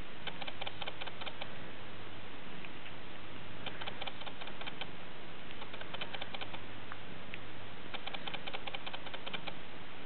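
Bengal kittens suckling at their mother's nipples: quick wet clicks and smacks in three short bursts, over a faint low steady hum.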